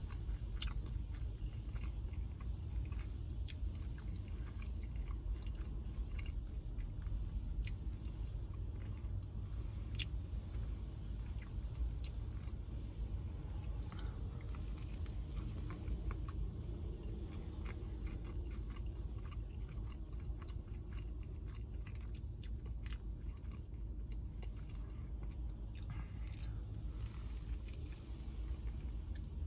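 Close-up chewing and biting of a jalapeño popper chicken sandwich: wet mouth noises with many small irregular clicks and crunches, over a steady low rumble.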